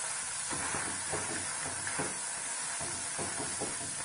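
Steady sizzle of soaked poha (flattened rice) frying in hot oil in a kadai, with light scrapes and taps of a wooden spatula stirring it starting about half a second in.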